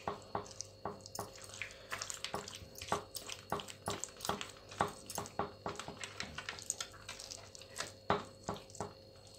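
Wet squelching and smacking of hands rubbing a thick, oily chilli-and-spice tandoori marinade paste onto a whole raw chicken, in quick irregular squishes several times a second.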